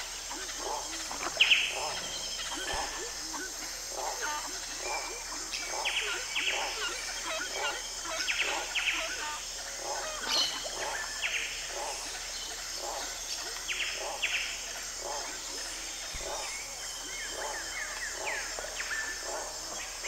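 Rainforest nature recording: a steady high-pitched insect chorus, birds chirping in short falling calls, and a lower animal call repeating about twice a second.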